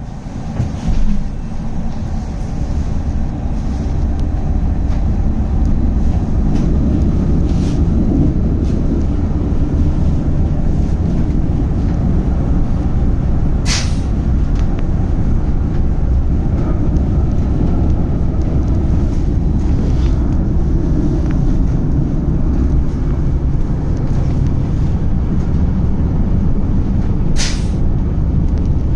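Tram running on its rails: a steady low rumble that builds up over the first few seconds, with a couple of sharp clicks, one about halfway and one near the end.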